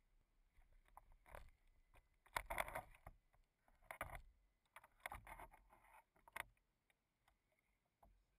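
Faint water lapping and a few irregular splashes against the hull of a radio-controlled boat floating on a lake, heard from on board, with the motor silent.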